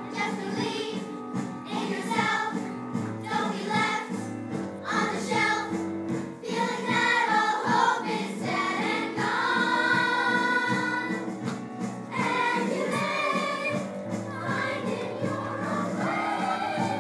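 Theatre cast singing a musical number together in chorus, with instrumental accompaniment.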